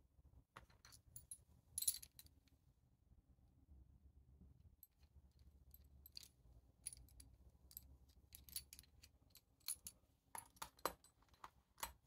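Light-alloy quick-release bicycle seat post clamp handled in the fingers: a scattered run of small metallic clicks and clinks, loudest about two seconds in and again near the end.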